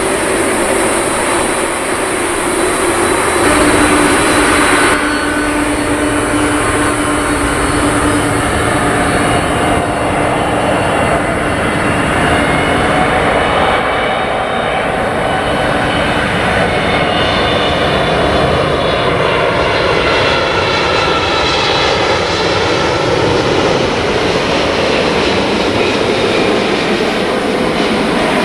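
Jet engines of a Korean Air Boeing 777-200ER on final approach, coming in low overhead: a loud, steady jet noise. Through the second half it carries tones that slowly sweep up and down in pitch as the aircraft closes in. The first few seconds hold the sound of a more distant jet.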